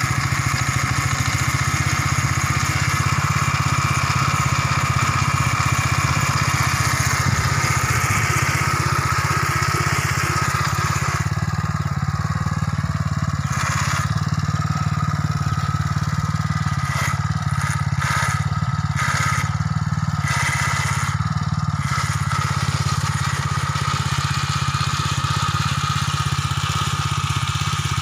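Robin-Subaru EY15 single-cylinder four-stroke engine on a Neva motor-cultivator running steadily as the tines work the soil.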